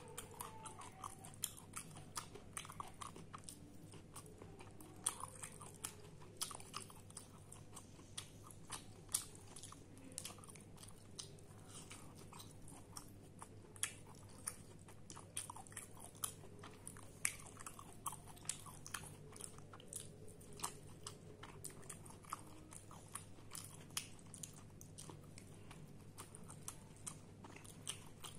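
A person chewing and biting crisp fried bitter gourd (karela fries) with rice, eaten by hand close to the microphone. Many short crunches and mouth clicks come at an irregular pace.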